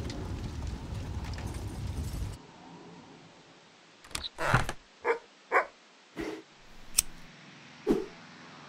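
Low rumbling noise that stops abruptly about two seconds in. After a short lull come about seven short, sharp knocks and clatters spread unevenly over the next four seconds, the second one the loudest.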